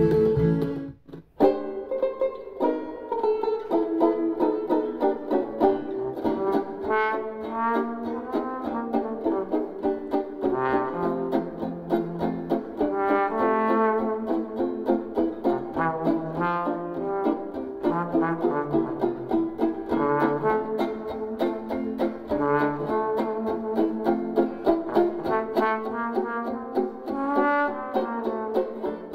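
Instrumental music played through a Klipsch The ONE II Bluetooth speaker. One piece cuts off about a second in, and after a brief gap another starts with a steady beat and melodic lines.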